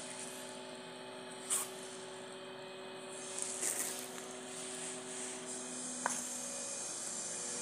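Milky tea poured from a clay kullad pot through a plastic strainer into a steel bowl, the splashing loudest about three to four seconds in. A steady hum runs underneath, with a sharp knock about a second and a half in and a click near six seconds.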